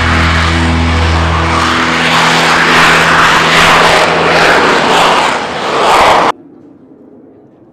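Dassault Rafale fighter's twin jet engines at takeoff power during its takeoff roll: a loud, steady jet roar that cuts off abruptly about six seconds in.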